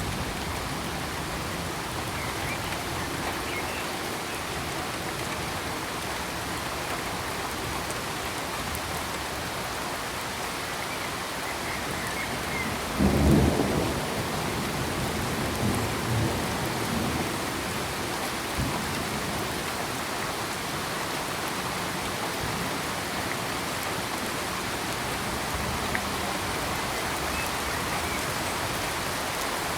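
Steady heavy rain with a thunderclap about halfway through, a loud low rumble that trails off in a few smaller rumbles over the next few seconds.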